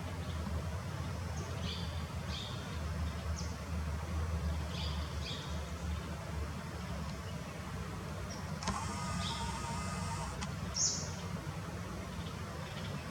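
Grey wagtail giving short, sharp, high-pitched single calls at irregular intervals, over a steady low rumble. A hissing noise with a faint tone runs for about two seconds past the middle.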